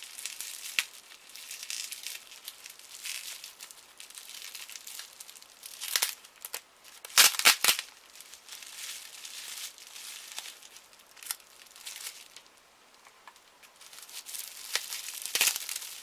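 Plastic packaging and tape being handled and pulled off a camcorder's AC adapter: steady crinkling and rustling, broken by a few short, sharp ripping sounds, the loudest a double rip about halfway through.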